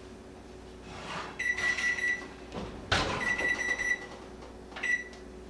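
Kitchen range's electronic beeper: a long high beep, a loud bang of the oven door shutting about three seconds in, another long beep, then a short beep near the end as the control panel is pressed.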